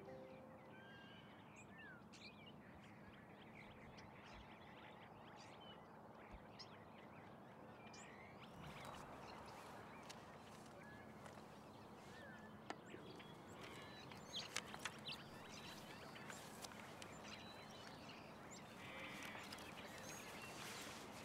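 Quiet park ambience: a faint steady background with scattered short bird chirps. From about halfway through, soft rustling and a few sharp clicks as a book is handled.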